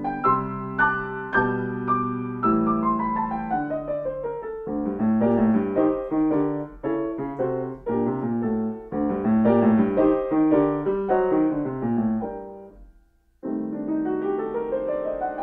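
Steinway grand piano played solo: repeated chords, then quick descending runs in both hands. The notes die away to a brief pause about thirteen seconds in, and a rising run follows.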